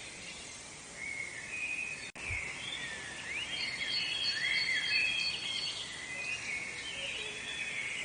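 Several woodland birds singing at once: overlapping chirps and short whistled phrases that slide up and down in pitch, over a faint steady background hiss. The sound cuts out for an instant about two seconds in.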